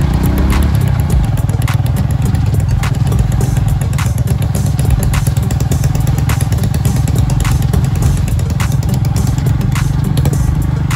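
A 110cc single-cylinder four-stroke motorcycle engine running steadily under way on a rough track. Sharp knocks and clatter come about once a second at uneven intervals.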